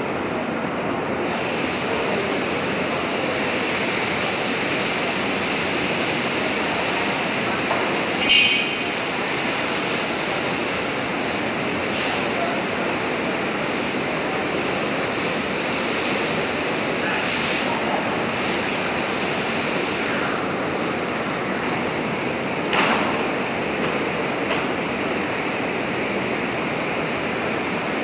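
Steady rushing roar of a large fire test: a burning office workstation fed by a heptane spray burner, under a laboratory exhaust hood. A few sharp pops and cracks come through, the loudest about eight seconds in.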